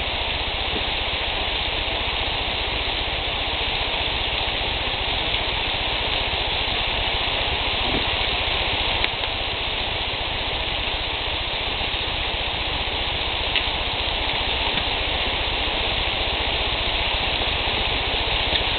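Bacon-wrapped quail breasts sizzling on a grill: a steady hiss with a low rumble underneath and a few faint pops.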